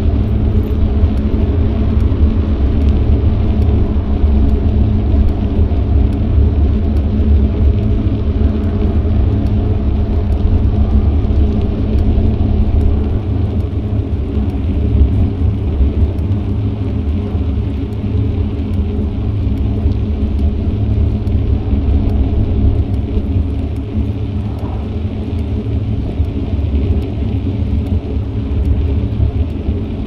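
Steady low rumble of wind buffeting an action camera's microphone on a moving bicycle, mixed with road and tyre noise. It eases a little about halfway through.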